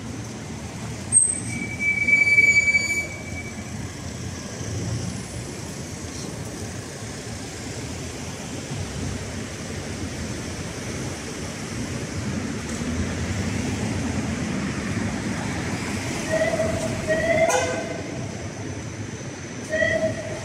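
Tram running along a busy city street over a steady rumble of traffic. A high wheel squeal sounds briefly about a second in, and three short pitched toots come near the end.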